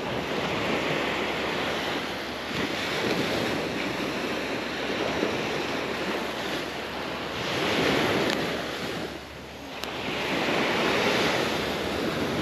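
Small surf waves breaking and washing up a sandy beach, a steady wash that swells louder twice, around eight and eleven seconds in.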